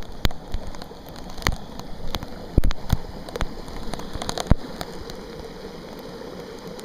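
Heavy rain falling steadily, with irregular sharp taps of drops landing close by.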